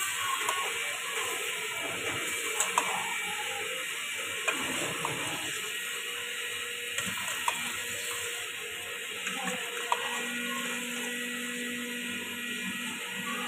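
Metal spatula stirring chicken pieces in a steel pot of cooking curry, clinking and scraping against the pot several times. The clinks sit over a steady hiss of the pot cooking.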